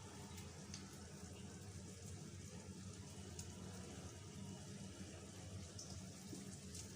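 Piyaju fritters of onion and gram flour frying in hot oil in a pan: a faint, steady sizzle with a few small pops.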